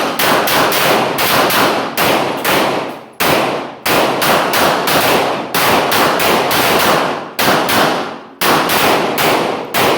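Rapid 9mm pistol fire: fast strings of shots, often in quick pairs, with short breaks about three seconds in and again about eight and a half seconds in while the shooter moves or reloads.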